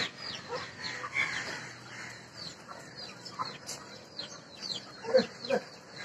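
Young chickens peeping and clucking: short, high, falling peeps keep coming, with a few lower, louder clucks about five seconds in.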